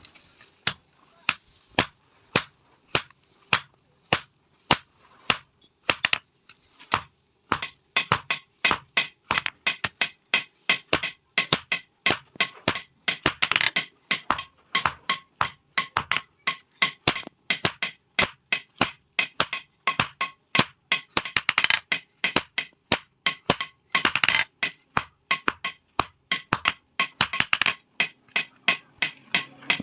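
Hand hammer striking metal in a steady rhythm, each blow ringing with a clear metallic note. The blows come about twice a second at first and quicken to about three a second after several seconds.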